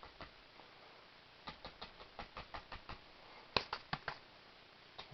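Paintbrush tapped against a stretched canvas, dabbing in leaves with acrylic paint: a run of quick, irregular light taps starting about a second and a half in, with a few sharper taps a little later.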